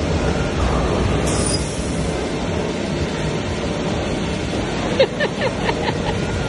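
Steady rumbling din of an indoor amusement arcade, with ride machinery and background voices. About five seconds in comes a quick run of about six sharp clicks or knocks.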